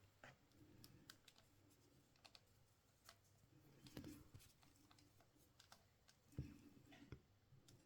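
Near silence broken by faint, scattered clicks and a few light knocks: small plumbing fittings and tools being handled during radiator pipework assembly.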